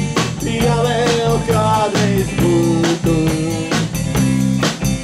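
Live band playing a pop song: electric guitar strumming over a steady drum beat of about two strokes a second, with a melody line on top, between sung lines.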